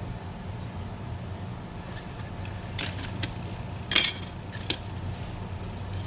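Small metal lock parts and tools clicking and clinking as the driver pins are taken out of a disassembled EVVA ICS lock cylinder. The clicks come in a few short groups, the loudest about four seconds in, over a steady low hum.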